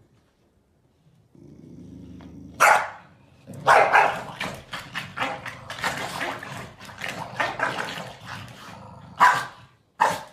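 Corgis growling and barking at each other in a squabble. A low growl starts about a second and a half in, then a sharp bark, then a run of snarling barks and growls, with two more loud barks near the end.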